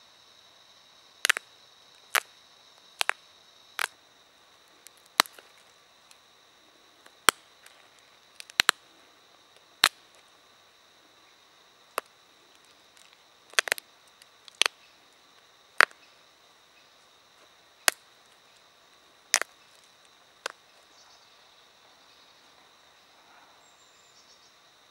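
Flint point being pressure-flaked: small flakes snapping off the edge under a pressure flaker, about fifteen sharp clicks at uneven intervals of one to two seconds, several of them doubled. The clicks stop a few seconds before the end.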